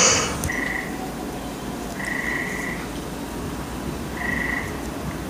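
Frog calls: three short calls at the same pitch, about two seconds apart, over a steady low rumble from a freight train approaching in the distance. A short burst of noise sounds right at the start.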